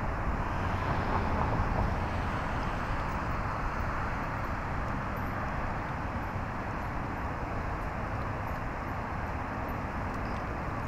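Steady hum of road traffic, an even wash of noise with no distinct events.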